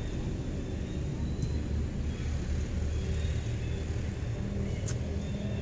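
Low, steady engine hum of a motor running nearby, with one brief sharp click near the end.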